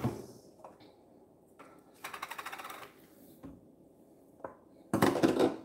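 Light kitchen handling sounds: a sharp click at the start, a quick rattle of small clicks about two seconds in, and a louder clatter near the end.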